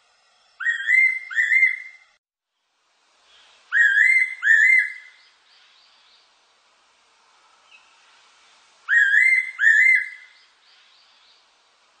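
Fairy pitta calling: a clear two-note whistle, given three times a few seconds apart, with a faint echo trailing each call.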